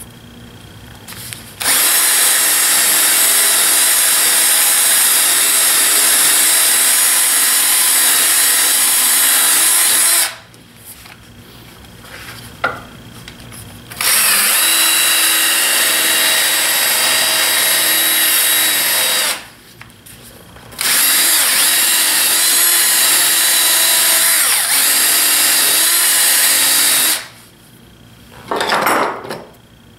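Power-driven wire wheel brush scrubbing the steel jaw edges of a clamp, stripping off dried glue residue. It runs in three long passes of several seconds each with short pauses between, then a brief final burst near the end.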